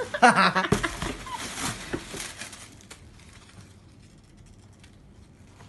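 Plastic packaging crinkling and rustling as a shoe is pulled out of its wrapping, loudest in the first couple of seconds, then dying away to faint rustles.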